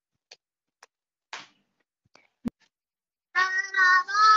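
A few faint, scattered taps and knocks, then about three and a half seconds in a high singing voice comes in, starting the next "goodbye" line of a children's goodbye song.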